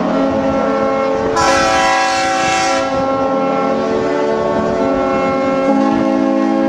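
Many yacht horns sounding at once, a chord of long overlapping blasts at different pitches. A brighter, harsher horn joins about a second and a half in for under two seconds, and a lower horn comes in near the end.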